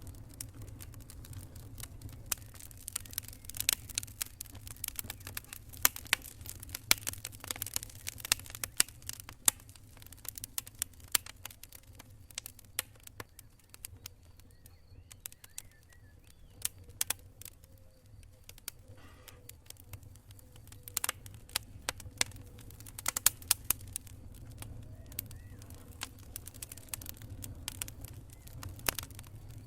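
Wood campfire crackling, with irregular sharp pops and snaps in quick clusters over a steady low rumble.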